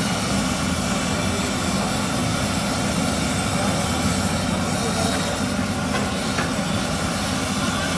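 Steady sizzle of jalebi deep-frying in a wide pan of hot oil, over a constant low rumble.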